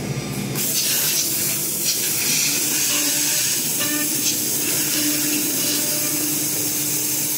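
Woodworking CNC router machinery running: a steady hiss with a faint low hum under it, starting about half a second in.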